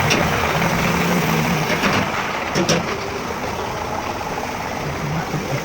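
An engine running steadily, with a couple of sharp knocks about two seconds in.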